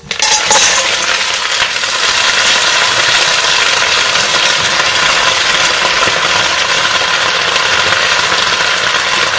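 Fresh mussels tipped into a stainless-steel pot of hot olive oil and sautéed garlic, with a brief clatter of shells as they land, then loud, steady sizzling as they hit the hot oil.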